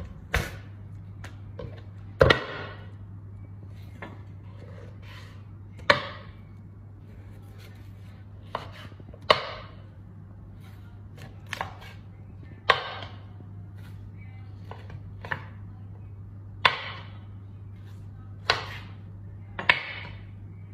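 Large kitchen knife chopping through a rack of raw rib meat into chops on a wooden cutting board: about a dozen sharp strikes at uneven gaps of one to four seconds, over a steady low hum.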